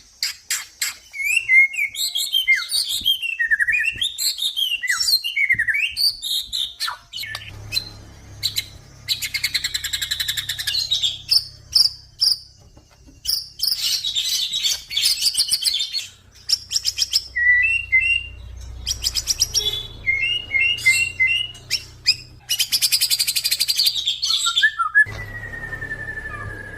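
Male white-rumped shama (murai batu), a crossbred bird, singing a varied song of whistled zigzag phrases, rapid trills and chattering runs. Near the end it holds a long whistle that falls slowly in pitch. A low steady hum runs underneath from about seven seconds in.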